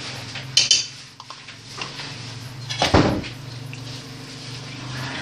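A metal spoon scraping fresh cream out of a plastic tub into a steel pot of cooked fusilli, a sharp knock about three seconds in, then the spoon stirring the pasta. A steady low hum runs underneath.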